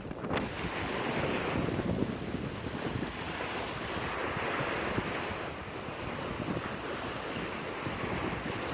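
Lake Huron waves breaking and washing up the beach, with wind buffeting the microphone.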